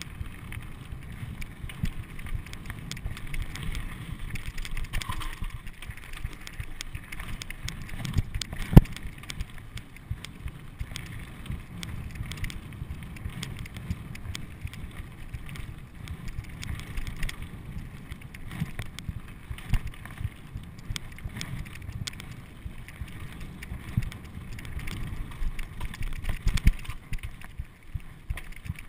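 Mountain bike riding over a rocky gravel trail: a steady low rumble of knobby tyres on loose stones, with frequent small clicks and knocks from the bike, and one sharp, loud knock about nine seconds in.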